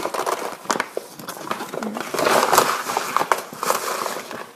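Paper rice bag crinkling and rustling as a hand digs inside it to scoop out rice, with irregular sharp crackles that are busiest about two to three seconds in.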